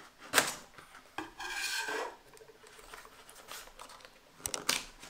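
Knife blade slicing the seal on a small cardboard box: a sharp tick about half a second in, then a scraping rasp lasting under a second, and a few light cardboard clicks near the end as the lid is worked open.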